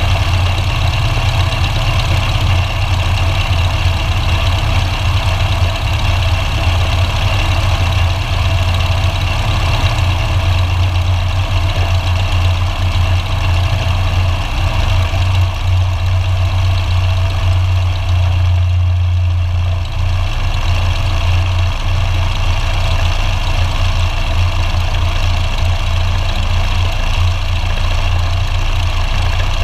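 Light airplane's piston engine running steadily at low power during the landing rollout, a continuous low drone.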